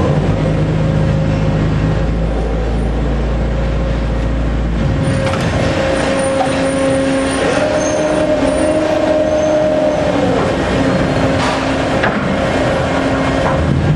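Phoenix OMAG stone cuber running through its travel: a steady machine hum with whining tones that shift in pitch, a low rumble that stops about five seconds in, and a few short pops. The popping during travel is not a mechanical fault, as the owner sees it.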